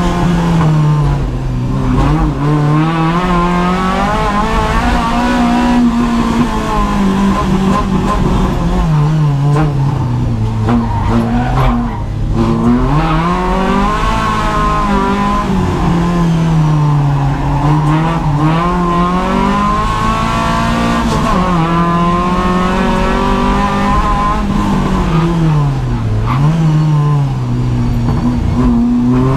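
Renault Clio 172's 2.0-litre four-cylinder engine at full load, heard inside the stripped cabin. Its pitch rises and falls over and over as it accelerates along the straights and slows for the corners of a race track.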